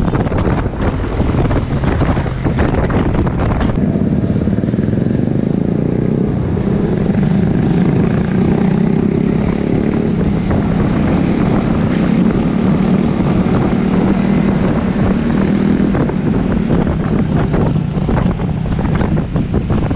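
Honda Forza 300 scooter's single-cylinder engine running while riding, with wind rushing over the camera microphone. About four seconds in the wind eases and a steady engine drone stands out, then the wind noise rises again near the end.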